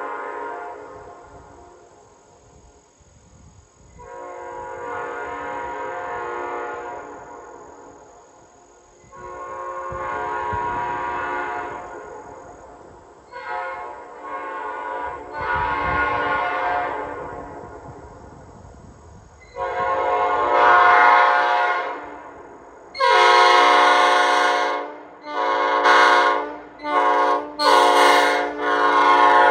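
Mixed-cast Nathan P5A five-chime air train horn sounding a series of blasts: several long blasts of two to three seconds, each swelling up and fading away, then a quicker run of short toots near the end.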